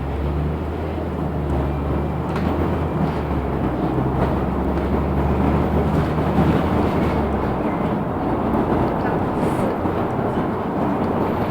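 LiAZ 6213.65 articulated city bus driving, heard from inside the passenger cabin: a steady rumble of engine and road noise. A low engine hum drops away about seven and a half seconds in.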